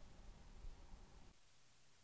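Near silence: a faint hiss that drops lower about a second and a half in.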